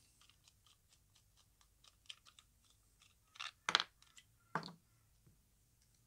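A GoPro and its head-strap mount being taken apart by hand: a string of small plastic clicks and taps, with two or three louder scraping sounds a little over halfway through.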